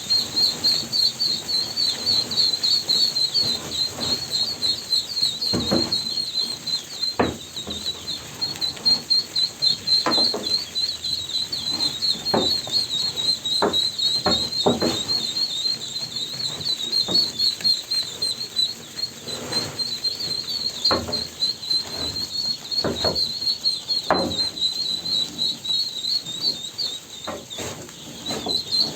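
A group of ducklings peeping without pause, a dense chorus of short high-pitched peeps, with scattered knocks among them.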